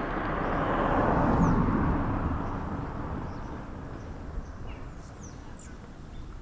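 Outdoor ambience: an even rushing noise swells over the first two seconds and then slowly fades, with a few faint, high bird chirps.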